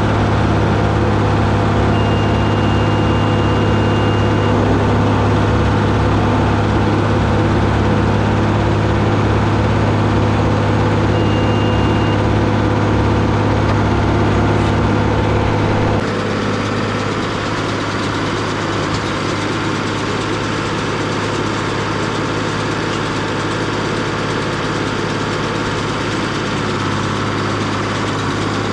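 Deutz D130 06 tractor engine running steadily while pulling a John Deere 566 round baler. The sound drops abruptly to a lower, quieter running sound a little past halfway. A thin high tone sounds twice in the first half, once long and once short.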